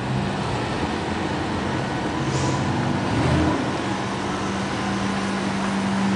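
Vehicle engine idling with a steady hum, swelling briefly about three seconds in.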